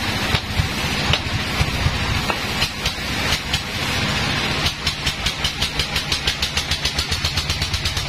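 Band sawmill machinery running with a steady low hum and scattered clicks. From about five seconds in, a rapid, even ticking sets in at about five ticks a second.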